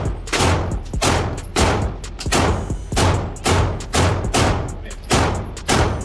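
FN 509 Tactical 9mm pistol fired in a steady string of shots, about two a second, each crack followed by a short echo off the walls of an indoor range.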